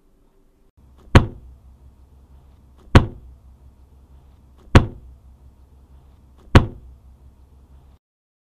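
Four sharp impact sound effects, evenly spaced a little under two seconds apart, one for each hammer lighting up in a four-out-of-five rating, over a faint low hum that cuts off near the end.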